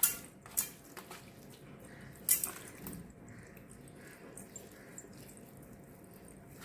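Wet squelching and slapping of a hand rubbing spice paste into soft raw Bombay duck fish on a steel plate, with three sharp clicks in the first two and a half seconds, then quieter, softer rubbing.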